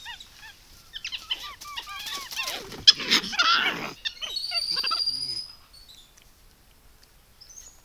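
Capuchin monkeys calling in a squabble at the water trough as one mounts another: a run of short chirping calls, then loud harsh screams about three seconds in, then a long high whistling call. The calls fade out after about five and a half seconds.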